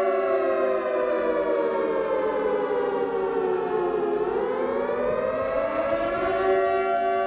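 Civil defense siren sounding a steady multi-tone chord. The pitch winds down for about four seconds, then climbs back up and holds steady again near the end.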